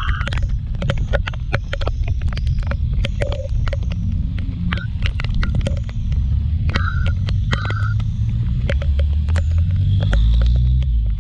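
Kymco Like 125 scooter on the move in the rain: a steady low rumble of engine and wind, growing louder near the end, with many sharp ticks that are likely raindrops hitting the microphone.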